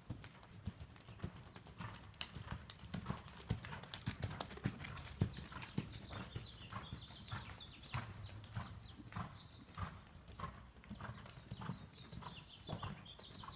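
Hoofbeats of a ridden horse moving around a sand arena, a steady rhythm of short knocks.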